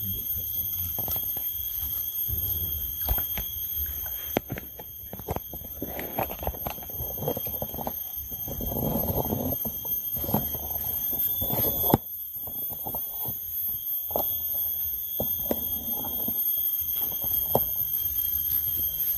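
A steady high-pitched whine runs throughout, over irregular knocks and sloshing of people wading in shallow river water. The sloshing swells in the middle.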